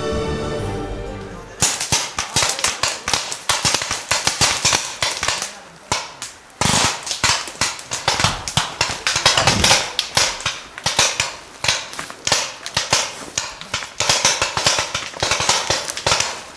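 Music for about the first second and a half, then rapid, irregular popping of airsoft guns firing, single shots mixed with quick bursts, with a brief lull about six seconds in.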